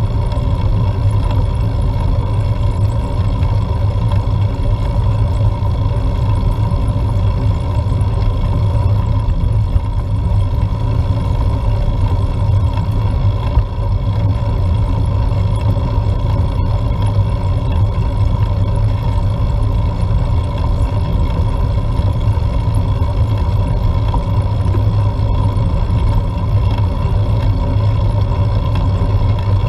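Steady road rumble and wind buffeting picked up by a bike-mounted action camera as the bicycle climbs, with a faint constant hum running under it.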